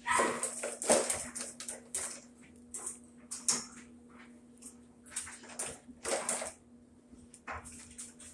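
Top-load washer's hinged top panel being released and lifted open: a run of irregular clicks, knocks and scrapes, loudest in the first second.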